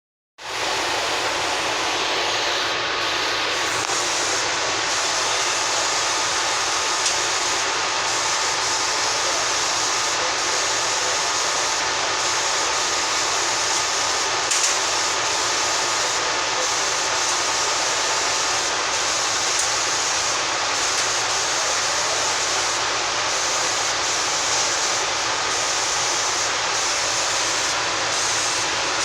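A laser cutting machine running on acrylic: a steady, loud rushing noise with faint constant tones, cutting in abruptly just after the start, the highest part of the hiss dropping briefly every second or two.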